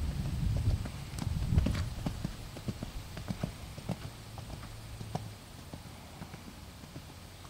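A horse's hoofbeats at the canter on a sand arena, a string of dull knocks that fade as the horse moves away, with a low rumble in the first two seconds.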